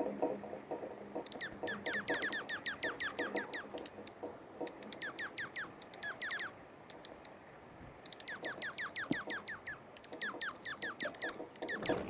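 Dark-eyed junco calling: runs of quick downward-sliding chirps, broken three times by a short, high, rapid trill, with scattered high peeps. Faint rapid clicking runs beneath.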